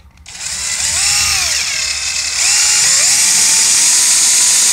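Cordless electric screwdriver driving a screw into a wall plate. Its motor whine glides up and down in pitch twice, then gets louder about halfway through and holds a steady pitch until it stops.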